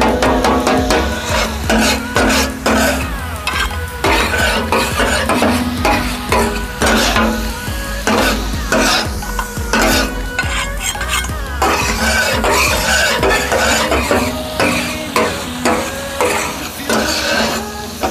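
Two metal spatulas chopping, knocking and scraping on a large flat iron tawa griddle, a fast irregular clatter over the sizzle of chicken kabab masala frying.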